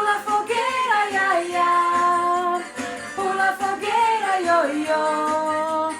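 A Brazilian festa junina song about the bonfire: a voice singing long held notes and sliding phrases over instrumental backing, with a short break in the phrasing about three seconds in.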